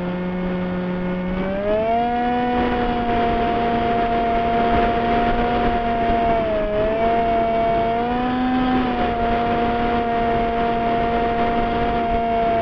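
RC model plane's motor and propeller whining as picked up by a camera on the airframe, with wind rush over it. The pitch climbs as the throttle opens about a second and a half in, dips briefly near the middle, rises again a couple of seconds later and then holds.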